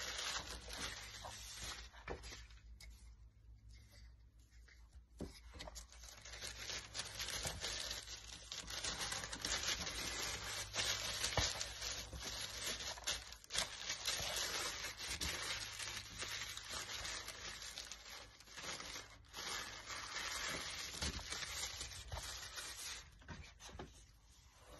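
White tissue paper being folded, crumpled and crinkled by hand in a steady, uneven rustling, with a quieter lull a couple of seconds in.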